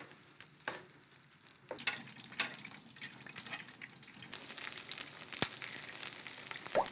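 Hot oil sizzling and crackling in a pan, growing louder in the second half, with a few sharp pops where drips of water land in the hot oil.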